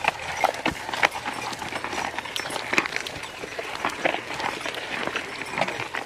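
Irregular crunching and knocking steps on dry, stony soil, several a second: a pair of oxen pulling a wooden plough, with men walking beside them.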